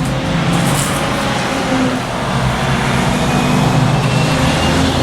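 A motor vehicle engine running steadily, a low hum with several held tones, a little louder than just before.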